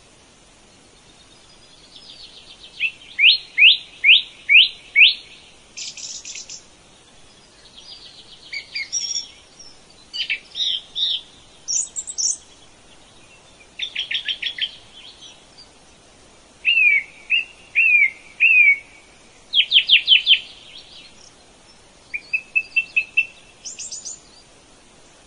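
A songbird singing: a string of short, varied phrases, each a quick run of high chirps or downward-sweeping notes, with brief pauses between phrases.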